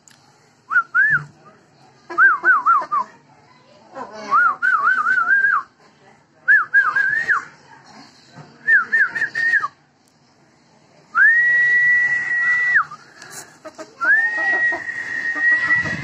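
A person whistling: several short warbling phrases of quick up-and-down notes, then two long held high notes in the second half.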